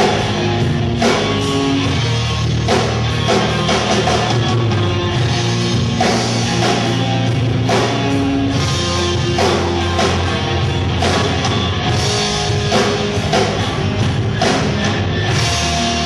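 Live rock band playing: distorted electric guitar over sustained low bass notes and a drum kit, with drum and cymbal hits landing about once a second.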